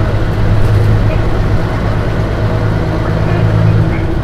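Mitsubishi Fuso Aero Star city bus's diesel engine running steadily with a low, even hum, heard from inside the passenger cabin.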